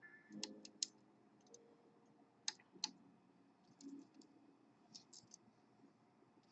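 Faint, sharp metallic clicks, a few at a time at irregular intervals, from a hook pick working the pins of a pin tumbler lock under tension.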